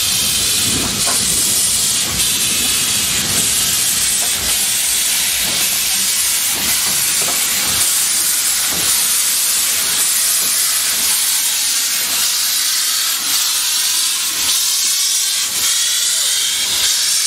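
Narrow-gauge steam locomotive with steam escaping in a steady loud hiss, with irregular low rumbles and knocks through the first half.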